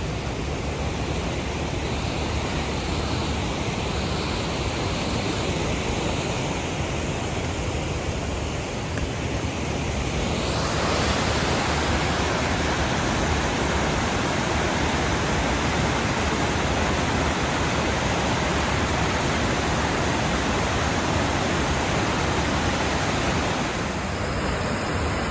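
Waterfall running in high flow swollen by snowmelt, a steady rush of water that grows louder and brighter about ten seconds in.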